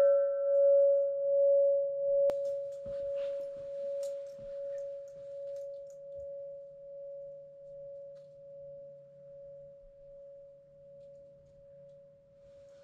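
A large hanging cylindrical metal bell ringing out after a single strike. One steady tone slowly dies away, pulsing gently about once a second. There is a sharp tap about two seconds in.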